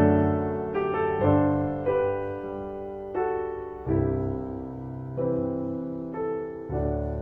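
Slow, gentle solo piano music: single notes and chords struck about once a second, each ringing and fading before the next.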